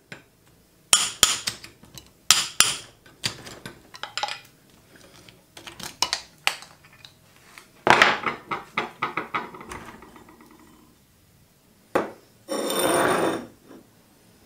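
Hammer blows on a steel drift driving the remains of the old wooden handle out of a rusty axe head held in a bench vise. There are two pairs of sharp strikes, then fainter knocks, then one loud metallic strike about eight seconds in with a ringing clatter after it. Near the end a harsh noise lasts about a second.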